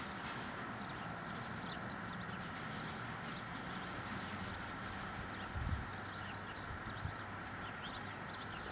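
Outdoor neighbourhood background: a steady low hum of distant traffic with faint high chirping, and a single low thump a little past halfway.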